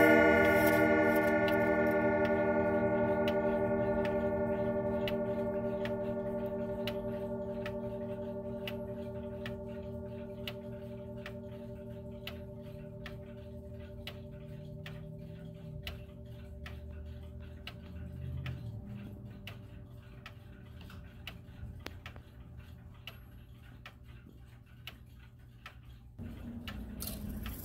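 Howard Miller Haverhill grandfather clock's chime rods ringing out after being struck, a cluster of tones fading slowly and cutting off suddenly near the end, while the clock movement ticks steadily.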